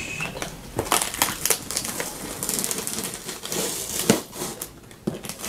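Hands handling a cardboard shipping box: irregular clicks, taps and scratching on its top, with a stretch of crinkling in the middle.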